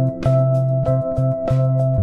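Instrumental background music: held bass notes under a melody, with a new note starting every quarter to half second.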